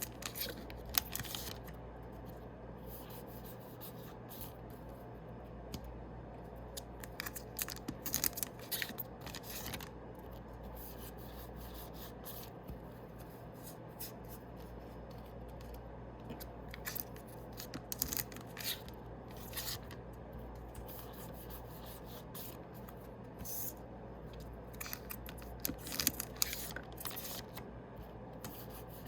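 Foil booster packs of trading cards being torn open and the cards handled: bursts of crinkling and rustling about every eight or nine seconds, over a low steady hum.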